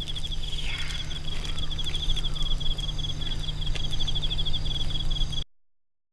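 An insect, likely a cricket, chirping in a high, rapid, evenly pulsed trill over a steady low hum of outdoor ambience. Everything cuts off suddenly near the end.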